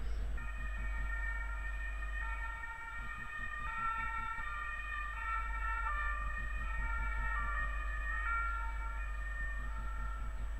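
A siren sounding in steady tones that step up and down in pitch every half second or so, over a steady low rumble.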